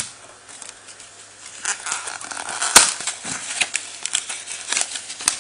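Foil booster pack wrapper crinkling and crackling as it is handled, a dense run of sharp crackles starting a second and a half in, the loudest near the middle.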